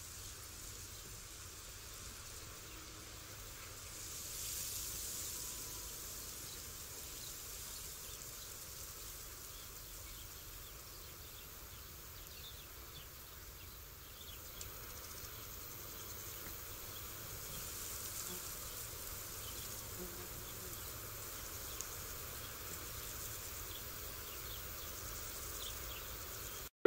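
Steady outdoor ambience with an insect buzz and faint short chirps scattered through it. It cuts off abruptly near the end.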